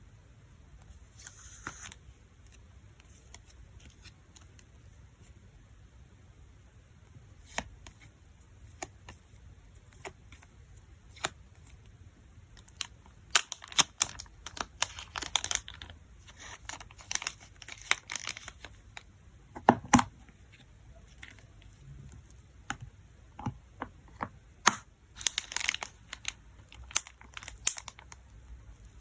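Photocard packing by hand: plastic sleeves and packaging crinkling and tearing, with scattered taps and clicks, busiest in the middle and again near the end. One louder knock about two-thirds through.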